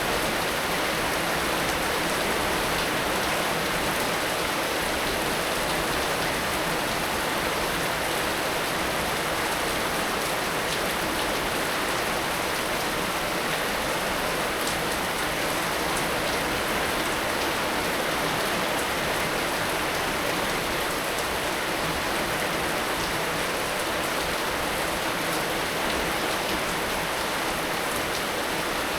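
Heavy rain falling steadily, an even hiss of rain with scattered drops ticking on surfaces.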